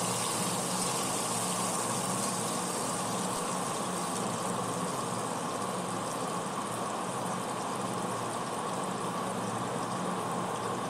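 Diced potatoes sizzling steadily in hot oil in a kadai.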